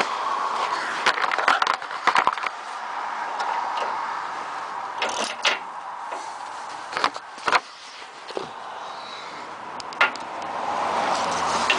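Hand tools clicking and clanking against the steel underside of the truck as the transmission cross member bolts are worked loose. The knocks are scattered: a cluster early, a few more in the middle, one near the end.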